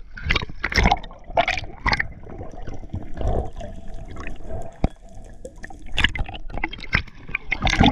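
Underwater water noise heard through a camera housing: gurgling and bubbling around a freediver, with irregular swishes of movement and one sharp click about five seconds in.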